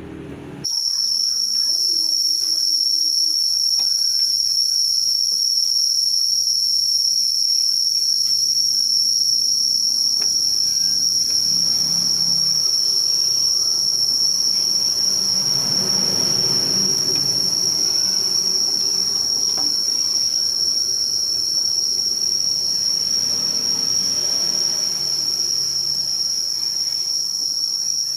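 A loud, steady, high-pitched insect drone that starts suddenly under a second in and holds without a break.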